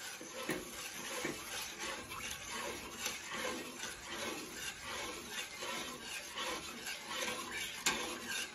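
Flat metal spatula scraping and sliding around an aluminium kadai, stirring a thin cornflour and sugar-syrup batter nonstop, with irregular scrapes and a few light clinks against the pan. The constant stirring keeps the cornflour from forming lumps as it starts to thicken.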